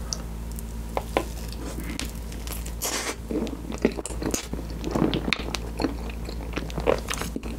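A person chewing a big mouthful of tiramisu cake, with wet mouth sounds and irregular smacks of the lips.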